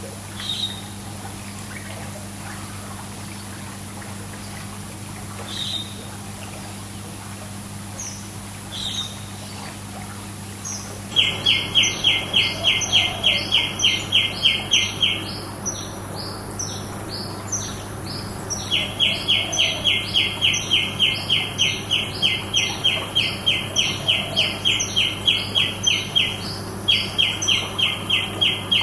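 Birds chirping over running pool water: a few scattered high chirps, then from about a third of the way in a rapid, even series of chirps, about four or five a second, in three long bouts. A low steady hum runs underneath.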